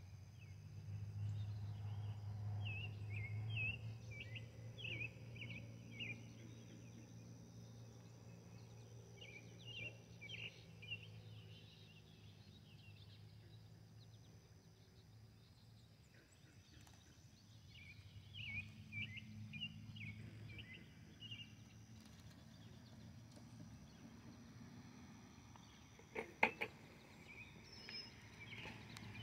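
Outdoor morning ambience: small songbirds chirping in short bursts every several seconds over a low steady rumble. Near the end come two sharp clicks, close together.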